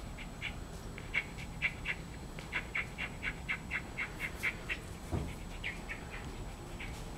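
An animal panting quickly, in short breathy pulses about four a second that come in spells, with a brief low thump about five seconds in.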